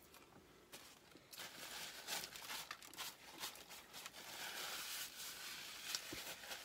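Faint crinkling and rustling of a paper napkin being handled: after about a second of near quiet, a run of small irregular crackles.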